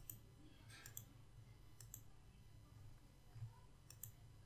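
Near silence with faint computer mouse clicks: a few pairs of sharp ticks spread over the seconds, over a low steady room hum.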